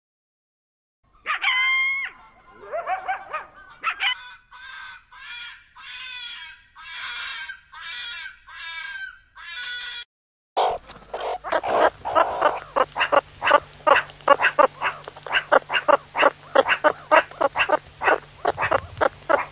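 A series of animal calls: a few separate pitched cries, then about nine short repeated calls, then after a brief pause a fast run of short sharp calls, roughly four a second.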